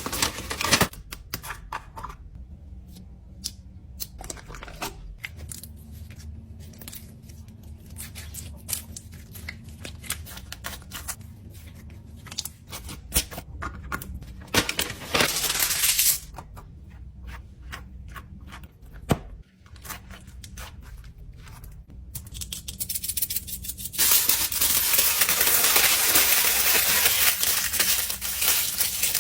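Fidget toys handled and packed into a lunch box: a run of small clicks and taps, a short burst of rustling about halfway through, and a long, loud stretch of crinkling and tearing near the end.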